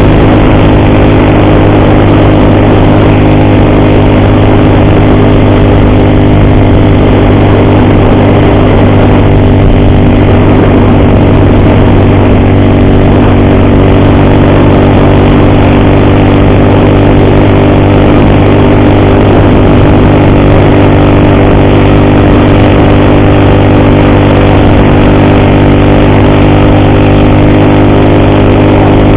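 Motorcycle engine running steadily at an even cruising speed, with no change in pitch, under a constant rushing noise. The rider says the engine has an ugly timing-chain noise that makes him afraid to accelerate.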